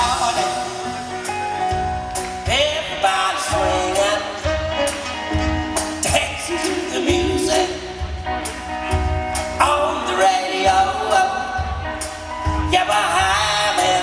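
A band playing a song with a singer, over a steady beat.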